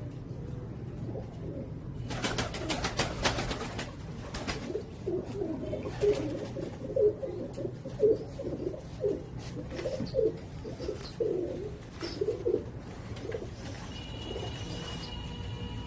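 Domestic pigeons cooing, a run of low calls one after another. A rapid clatter comes about two seconds in, and a steady low hum runs underneath.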